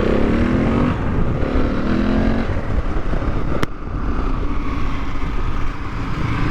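Husqvarna 701's single-cylinder four-stroke engine through an Akrapovic titanium slip-on exhaust, accelerating under throttle: the pitch rises twice in quick succession, as on an upshift, then the engine runs on steadily. A single sharp click about three and a half seconds in.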